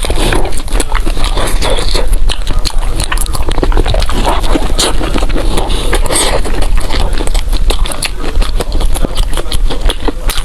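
Close-miked eating sounds: wet chewing and crunching of food, with dense irregular crackles and smacks throughout.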